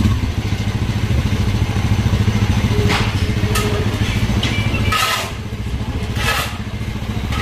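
Motorcycle engine running close by; its low drone eases off about five seconds in.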